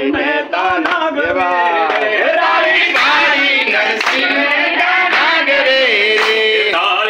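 Group singing led by a woman's voice, with the seated group clapping along in a steady rhythm.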